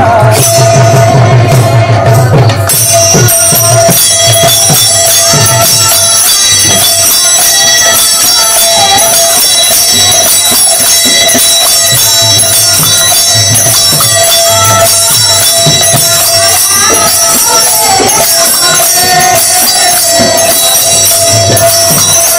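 Devotional kirtan music: small hand cymbals clash and ring steadily over a large hand-beaten barrel drum, with a held drone note. Women's singing voices come in at times. The drum is heaviest in the first couple of seconds.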